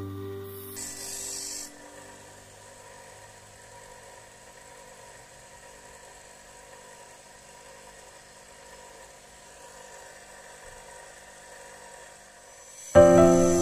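Faint, steady running of an electric bench grinder's motor, with a brief hiss about a second in. Music fades out at the start and comes back in loudly near the end.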